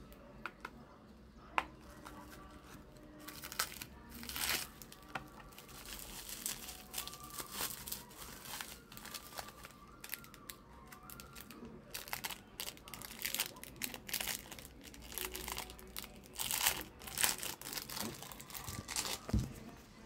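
Bubble wrap and plastic packaging crinkling and rustling in irregular bursts as it is handled and pulled apart. It is loudest near the end.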